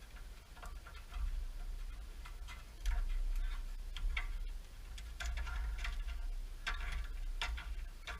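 Irregular light clicks and taps of a metal brake line and its fittings being handled and worked into place, over a low rumble.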